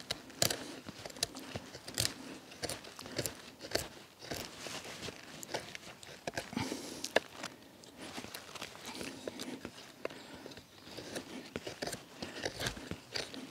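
Carbon-steel bushcraft knife blade cutting into a split pine stick by hand pressure to carve an L7 notch: irregular crunching cuts and sharp clicks as the wood fibres give way.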